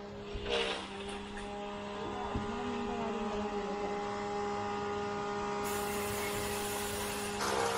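A steady low hum with several fainter higher overtones, and a brief rustle about half a second in.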